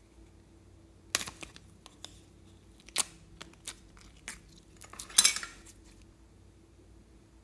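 Hard plastic slime container being opened and handled: a handful of sharp plastic clicks and cracks, the loudest about five seconds in.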